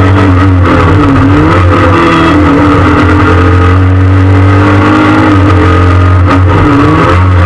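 Peugeot 306 S16 rally car's four-cylinder 16-valve engine revving hard, heard loud from inside the cabin. The revs drop briefly and climb again about a second in and again near the end.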